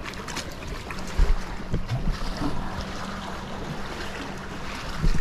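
Choppy lake waves splashing against a kayak's hull, with wind buffeting the microphone and a few heavy low thumps about a second in and again near the end.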